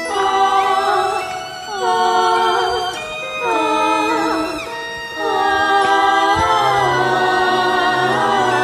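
Wordless ensemble singing: several layered voices holding sustained notes in harmony with vibrato, in a few phrases. A low sustained bass note enters about six seconds in.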